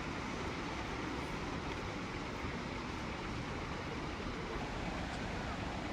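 Steady rushing roar of flood water pouring through the raised spillway gates of a dam.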